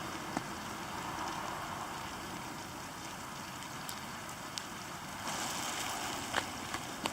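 Rain pattering steadily on a plastic SOL survival poncho, with scattered sharp drip ticks; the patter grows brighter and heavier about five seconds in.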